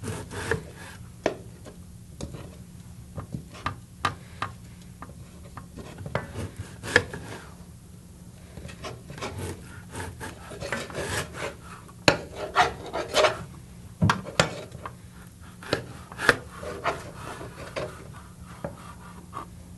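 Chef's knife slicing an onion on a plastic cutting board: irregular knocks of the blade on the board with a scraping rub between cuts, coming quicker and louder for a few seconds about two thirds of the way through.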